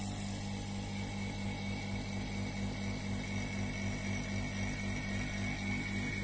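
Small electric vacuum pump running steadily, drawing vacuum on a filter flask to pull sunflower oil sludge through the filter. Its hum pulses fast and evenly, with a steady high whine over it.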